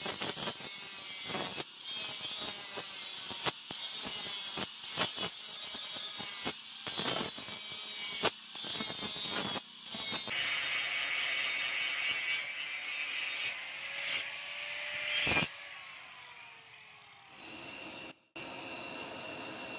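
Electric angle grinder with an abrasive disc grinding the edge of a steel hoe blade, at first in many short passes broken by brief gaps, then continuously. Past the middle it winds down with a falling whine. Near the end a steady hum takes over.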